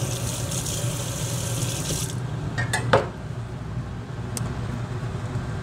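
Kitchen tap running into the sink for about two seconds as hands are rinsed, then shut off suddenly, followed by a couple of light clicks.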